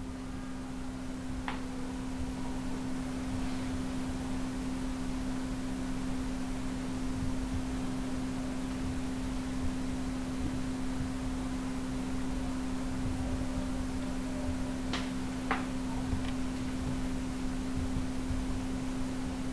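Steady low electrical hum over a faint hiss, with a few faint clicks about a second in and twice near the end.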